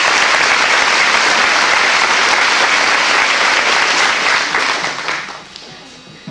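Audience applause, dying away about five seconds in.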